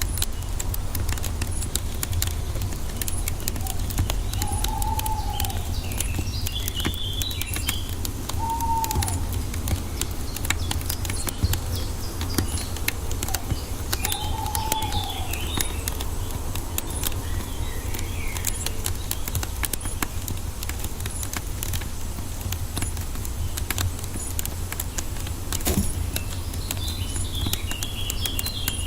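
Wood fire crackling with dense sharp pops over a steady low rumble. Birds call in the background: a few short rising-and-falling calls every few seconds in the first half, and snatches of high chirping song.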